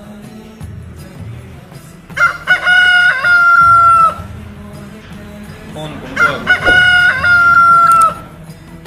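A rooster crowing twice, about four seconds apart. Each crow is loud, about two seconds long, ends on a long held high note, and the two are nearly identical. It is a mobile phone's rooster-crow ringtone ringing.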